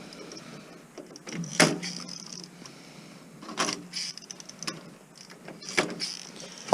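Four sharp metallic knocks and clinks spread over a few seconds, with a short ring after each, as scrap metal parts are handled and knocked about.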